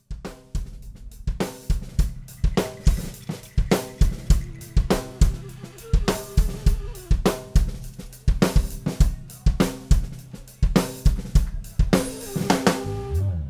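Live funk drum kit playing a steady groove of kick, snare, hi-hat and cymbal hits, several strokes a second.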